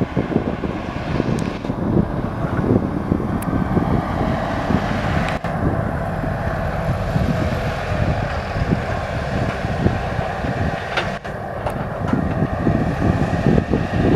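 Fahr M1000 combine harvester running as it moves off along the field: a continuous mechanical rumble with a steady hum, and wind buffeting the microphone.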